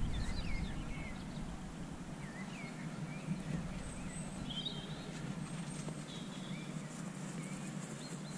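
Outdoor farm ambience: small birds chirping now and then over a low steady rumble.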